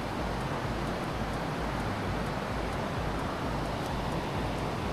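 Steady wind noise buffeting the microphone, with faint light ticks high up.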